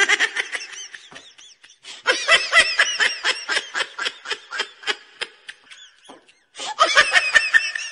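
Very high-pitched laughter in rapid ha-ha pulses, coming in three bursts with short breaks about a second and a half in and around six seconds in.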